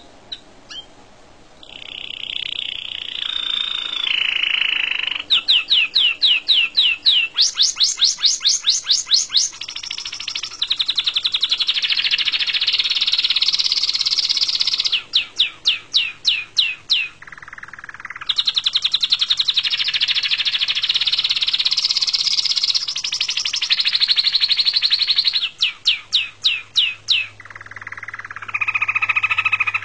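Orange domestic canary singing a long song that starts about two seconds in: runs of quick, evenly repeated rising whistles alternate with fast continuous trills, with a few short breaks.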